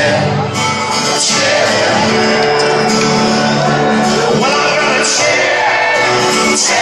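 Live folk-rock band playing loud, with acoustic guitar, banjo, keyboard and electric guitar under singing, and crowd shouts and whoops mixed in. Several hard accented hits punctuate it, and it echoes in a large arena.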